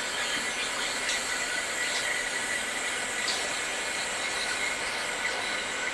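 Hot air rework station blowing with a steady hiss while desoldering a shorted capacitor from a water-damaged iPhone logic board, with a few faint ticks.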